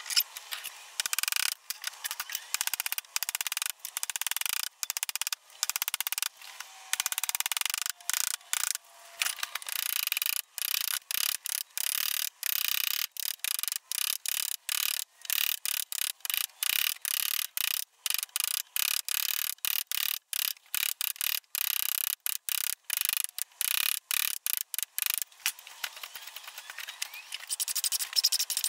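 Steel hand chisel paring end grain off a wooden fence post, a steady run of short dry scraping strokes, about two a second.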